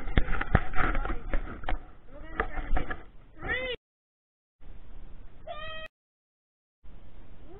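Three short meow-like calls, each rising and then falling in pitch, at the ends of short clips cut apart by sudden silences. Loud close-up yelling with knocks on the microphone comes before the first call.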